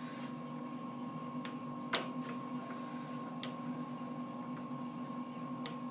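Steady electric motor hum from the machine-shop machinery, with a few light metal clicks as a micrometer is worked against the freshly ground steel part. The sharpest click comes about two seconds in.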